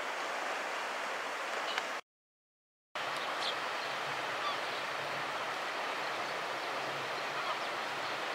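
Steady hiss of distant surf washing on a sandy beach, broken by a sudden gap of silence lasting about a second, two seconds in.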